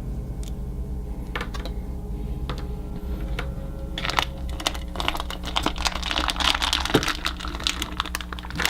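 Blind-bag packaging being handled and torn open, crinkling: a few scattered clicks at first, then dense crinkling from about four seconds in.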